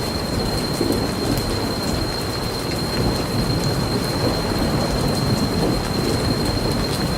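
Steady rain with scattered fine drop ticks over a deep continuous rumble. A thin, steady high tone runs underneath.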